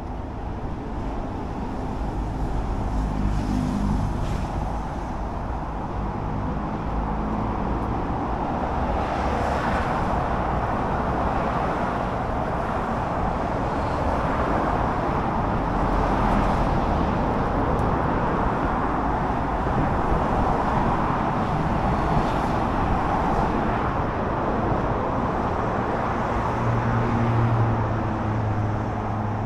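Road traffic: motor vehicles running and passing close by, a steady noise that swells slightly through the middle, with engine hum near the start and near the end.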